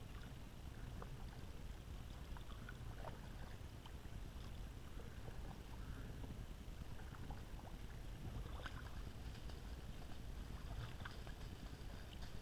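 Kayak paddling: water dripping and splashing off the paddle blades in short, irregular splashes over a steady low rumble.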